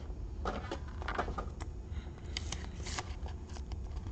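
Trading cards being handled: a scatter of light sliding, rustling and clicking of cards and their packaging.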